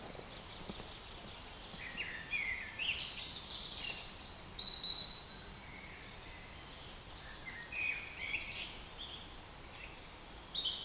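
Quiet outdoor ambience with a few songbirds calling in short chirping phrases, several times.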